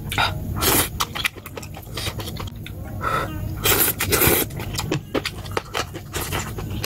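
A person slurping thin noodles and broth from a spoon and chopsticks, with mouth and breathing sounds between bites. The loudest slurps come just under a second in and around four seconds in.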